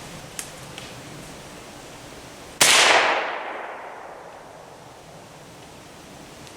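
A single shot from a Henry H015 single-shot rifle in .308, about two and a half seconds in. The report rings out and dies away over a second or so. Two faint clicks come shortly before it.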